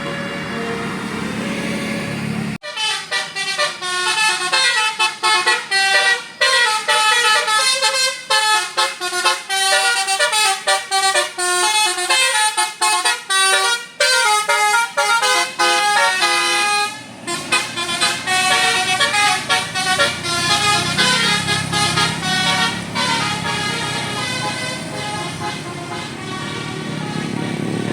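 A bus's multi-tone 'telolet' basuri air horn plays a fast melody of short, stepping notes, starting abruptly about two and a half seconds in. The tune thins out after about seventeen seconds, leaving a low steady rumble.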